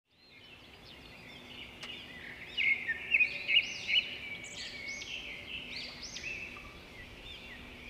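Many small birds chirping and twittering over one another, fading in over the first second, with a faint steady hum beneath.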